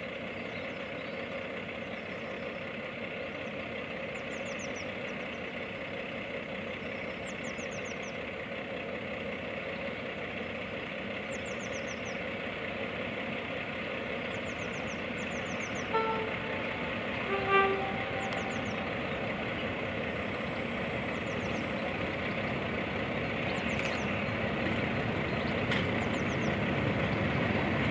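Diesel locomotive approaching with a train, its engine growing steadily louder, sounding its two-tone horn about two thirds of the way through: a short higher note, then a longer lower one. Birds chirp in short trills throughout.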